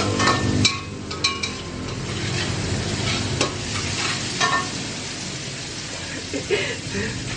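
Rice sizzling as it stir-fries in a metal wok while a spatula stirs and scrapes it, with sharp clicks of the spatula striking the pan every second or so, fewer toward the end.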